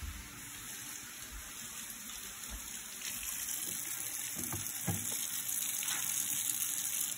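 Kitchen faucet running into a stainless steel sink while hands are washed under the stream. The water gets louder about three seconds in.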